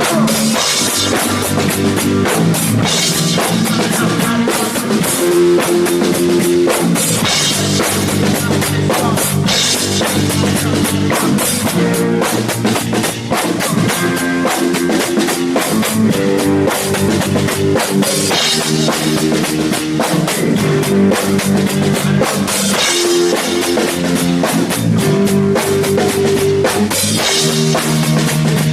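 Rock band playing live and loud: drum kit with cymbals, electric guitar and bass guitar.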